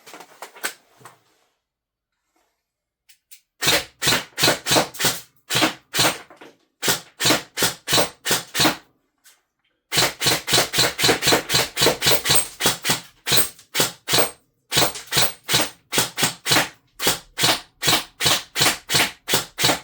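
G&G SGR 556 airsoft electric gun firing single shots in quick strings, about four or five a second, with short pauses between strings. It is being test-fired to check that it feeds BBs from the magazine.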